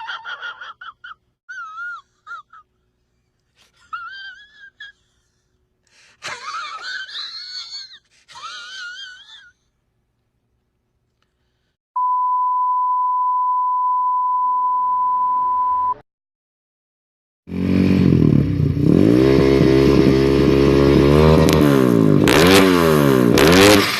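Several short warbling, whistle-like sounds, then a steady single beep lasting about four seconds. After a pause, a motorcycle engine revs hard and loud, its pitch swinging up and down several times.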